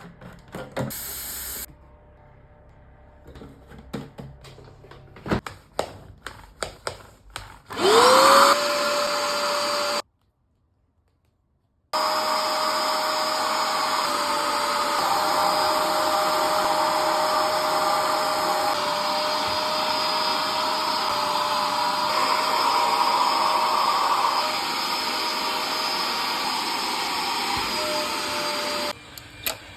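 Scattered clicks and knocks, then a Bissell SpotClean Pet Pro upholstery cleaner's suction motor starts about eight seconds in with a whine rising as it spins up. It runs steadily and loudly, broken off for about two seconds, and stops shortly before the end.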